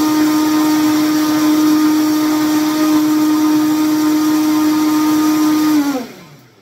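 Vitamix blender running steadily, blending a thick cashew queso. Near the end it is switched off and the motor winds down, its pitch falling until it stops.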